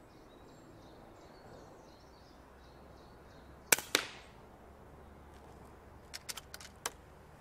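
A .22 FX Indy pre-charged pneumatic air rifle fires once at its 30 ft-lb full-power setting: a sharp crack, then a second sharp smack about a quarter second later. A couple of seconds after that comes a run of quick metallic clicks as the cocking lever is worked to load the next pellet. A bird sings faintly before the shot.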